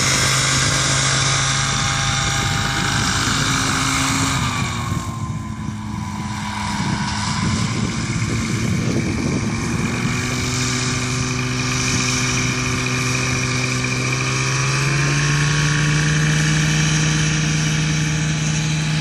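A Hurricane ultralight's engine and propeller running as the aircraft moves along the runway. The engine note drops about four seconds in, then climbs in two steps as the throttle is opened, settling at a higher, steady pitch near the end.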